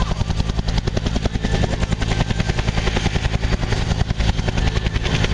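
Agusta-Bell AB212 helicopter hovering, its two-bladed main rotor beating in a rapid, even pulse.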